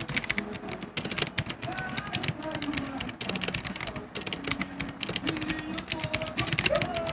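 Fast typing on a Gigaware K550 mechanical keyboard with clicky blue switches: a dense, rapid clatter of loud key clicks. Faint music plays in the background.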